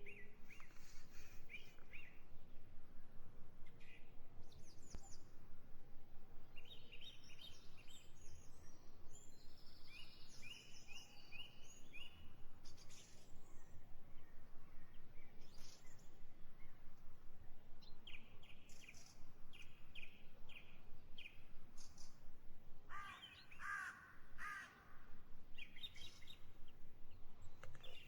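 Wild birds chirping and calling in quick series over a steady low outdoor background, with a louder, harsher call twice around 23 to 25 seconds in.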